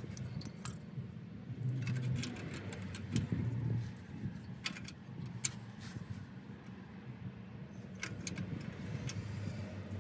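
Irregular metallic clicks and clinks of a ratchet and oxygen-sensor socket being fitted onto a new O2 sensor and turned in the exhaust pipe, over a steady low hum.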